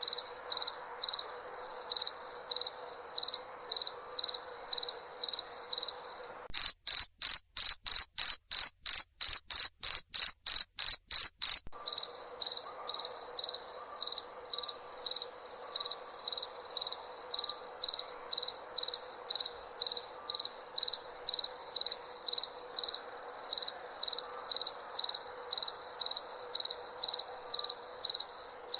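Cricket chirping: a steady run of high, pulsed chirps, two or three a second, over a faint low hum and hiss. From about six seconds in, for about five seconds, the background drops out and the chirps come cleaner and a little faster, then the earlier sound returns.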